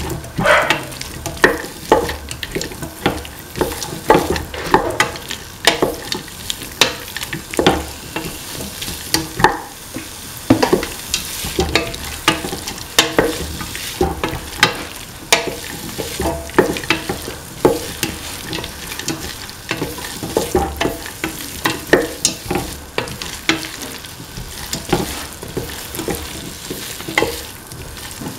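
A spatula stirring and scraping winter melon, tomato and green peas around a metal pan, with irregular knocks and scrapes about once or twice a second over a steady sizzle as the vegetables sauté.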